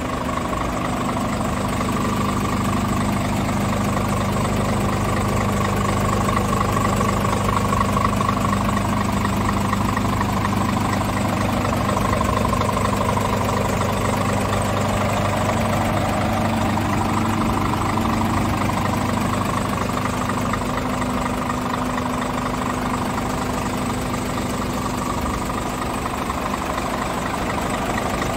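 Scania R410 truck's 13-litre inline-six diesel engine idling steadily, heard from in front of the truck with the front service hatch open.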